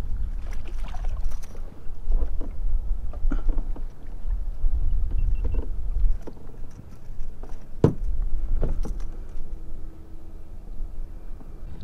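Handling noise aboard a kayak as a small fish is reeled in, swung aboard and unhooked: knocks and clicks of rod, reel and fish against the hull over a low rumble, with one sharp knock about eight seconds in.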